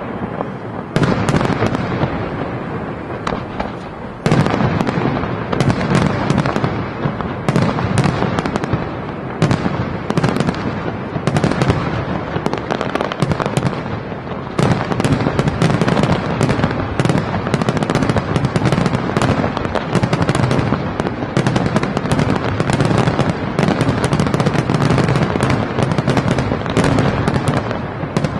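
Aerial firework shells bursting in a dense, continuous barrage: many sharp bangs in quick, overlapping succession, with sudden louder volleys about a second in and about four seconds in.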